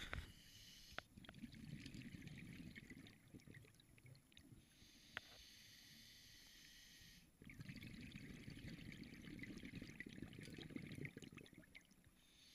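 Faint underwater sound of scuba breathing: two stretches of crackling regulator exhaust bubbles, one about a second in and one from about seven seconds, with a quieter hiss between them.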